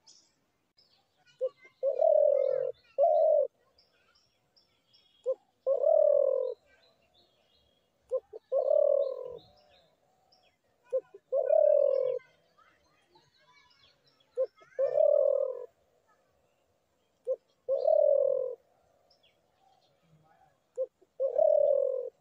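A dove cooing in a repeated phrase, about every three seconds: a short note followed by a longer, lower coo, seven times over. Faint chirps of small birds sound between the phrases.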